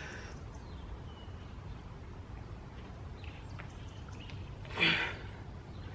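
A man lets out a short, forceful exhale or grunt of effort about five seconds in while lifting a heavy dumbbell. Behind it is a steady low outdoor rumble.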